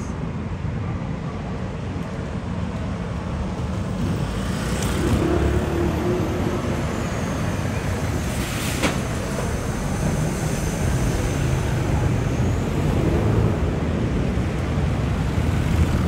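Road traffic with a heavy articulated lorry passing close by, its diesel engine rumbling louder from about four seconds in. A brief sharp noise about nine seconds in.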